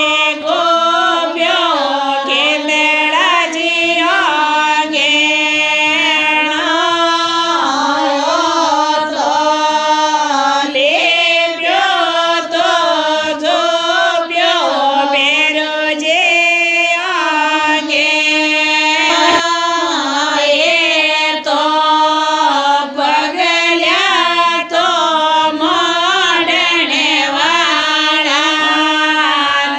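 Singing of a traditional Marwari ratijoga devotional song (bhajan) to Bheruji, the melody running on without a break over a steady held drone.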